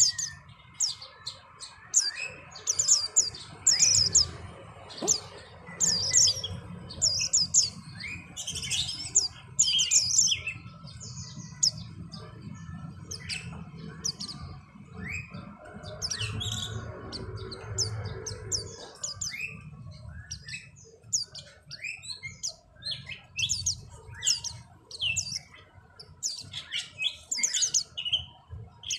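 Pleci white-eyes (Zosterops) calling in rapid series of short, high chirps and twitters, some notes sweeping down in pitch. This is the calling of a pair in breeding condition, close to mating.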